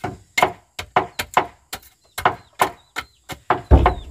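Hammer blows on wooden boards, about three quick strikes a second, as nails are driven in during wall-building. Near the end comes a heavier, deeper thud.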